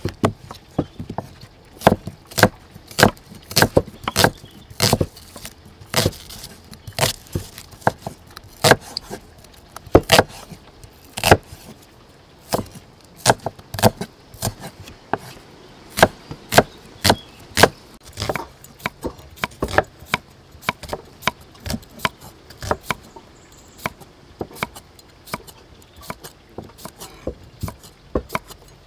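Cleaver slicing through onion and then cucumber, its blade knocking on a wooden chopping block in an irregular run of sharp chops, roughly one or two a second.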